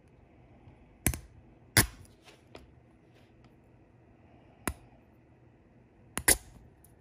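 Sharp, irregular plastic clicks as 3D-printed cams are pushed along a splined plastic gear shaft and snap into place, about six in all, two of them close together near the end; a sound the maker calls oddly satisfying.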